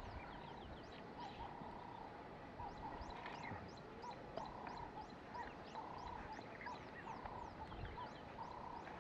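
Faint chorus of frogs and birds calling: a mid-pitched note repeats about twice a second, alternating longer and shorter notes, over many short high chirps.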